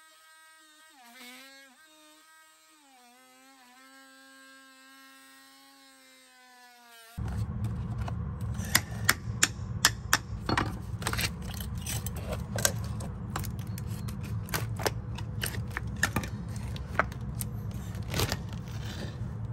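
A faint buzzing hum that shifts in pitch a few times. About seven seconds in it gives way to louder tool work on a rotten timber door threshold: repeated knocks and scrapes over a steady low rumble as the old seal is cut and pried out.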